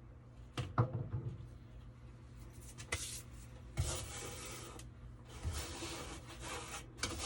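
Hands scraping and rubbing inside a dryer vent, pulling out packed lint and fine dirt: a few light knocks about a second in, then several scratchy passes of a second or so each.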